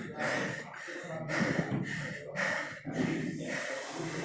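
Heavy, rapid breathing from hard exertion: a quick run of short, noisy breaths, just under two a second.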